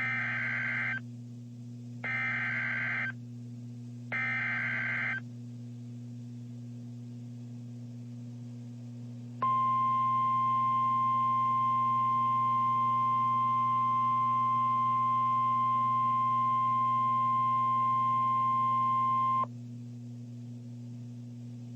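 Three short screeching EAS/SAME digital data bursts about a second apart, the header that opens a new warning. After a pause comes the steady ten-second 1050 Hz NOAA Weather Radio warning alarm tone. A low electrical hum runs underneath.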